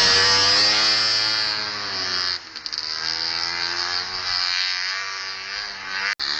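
Tuned Rotax 277 single-cylinder two-stroke engine of a 1968 Ockelbo 300 snowmobile, running at high revs as it passes close. Its pitch falls and it grows fainter as it pulls away, then the revs rise and fall in the distance. The sound drops out suddenly near the end.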